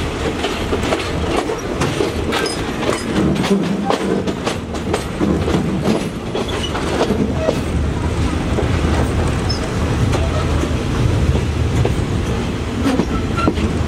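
Passenger train rolling slowly through a station yard, its wheels clacking and knocking over rail joints and points under a steady low rumble, heard from an open carriage window. The clacks come thick in the first half, then settle into a more even rumble.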